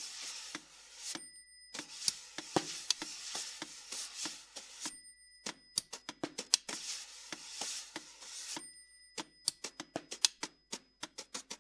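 Snare drum played with extended techniques: long rubbing strokes across the cloth-covered head alternate with sharp stick clicks. The clicks speed into a run of quick taps near the end. A high, ringing metallic tone sounds in the pauses between the rubbing passages.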